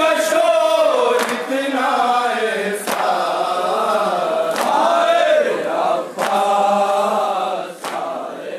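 A group of men chanting a noha, a Shia mourning lament, in unison through microphones, with a sharp chest-beating strike (matam) about every second and a half. The chant dies away near the end.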